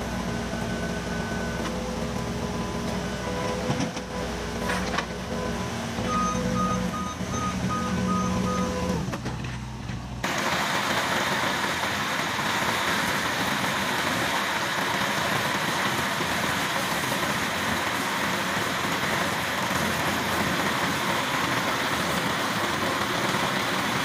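Case skid steer's diesel engine running with a Centerline HS-57 manhole cutter attachment, with a short run of about six evenly spaced beeps in the middle of the first half. About ten seconds in the sound changes to a steady, dense cutting noise as the toothed cutter drum turns through the asphalt around a manhole.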